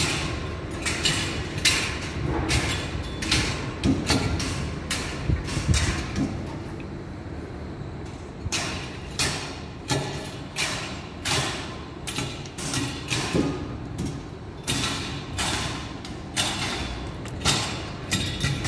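Construction-site hammering: a steady run of sharp blows, about three every two seconds, with a lull of a second or two partway through.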